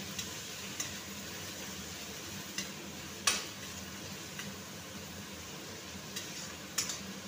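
Sliced onions and tomatoes sizzling in oil in a metal kadhai while a spatula stirs them, knocking and scraping against the pan about seven times, loudest about three seconds in.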